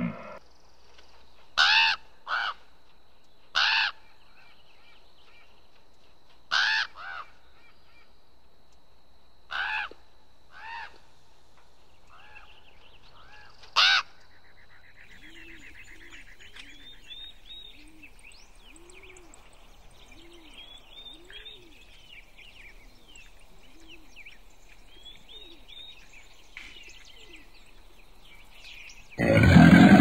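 Rock ptarmigan calling: a string of short, loud, croaking calls in the first half, then fainter, busier chattering calls. Near the end a loud low growl, apparently from a crocodile, cuts in.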